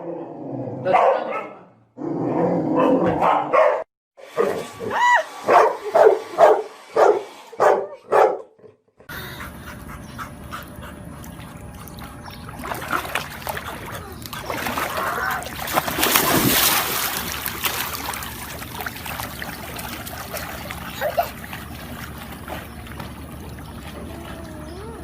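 A dog barking and yelping in a quick run of short calls, about two a second. About nine seconds in, the barking gives way to a steady rushing background noise.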